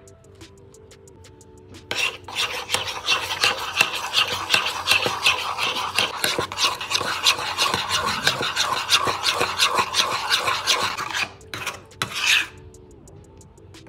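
Metal spoon stirring a thick mayonnaise-and-ketchup sauce in a small bowl, scraping the sides in quick, continuous strokes. The stirring starts about two seconds in and stops around eleven seconds, with one more short scrape just after.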